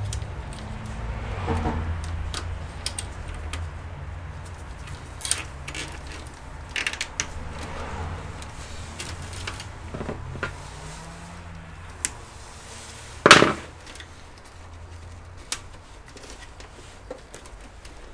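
PC power cables being handled and routed inside a computer case: scattered clicks, rustles and knocks, the loudest a sharp knock about thirteen seconds in, over a steady low hum.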